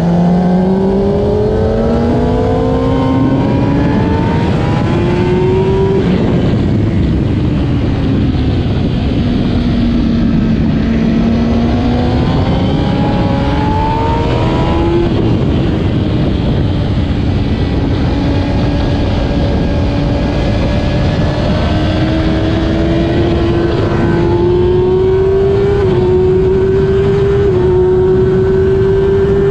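2008 Kawasaki ZX-10R's inline-four engine at race pace, revving hard. Its pitch climbs for the first few seconds and falls away, climbs again and drops sharply about halfway through, then rises steadily through the last part with brief small dips at the gear changes.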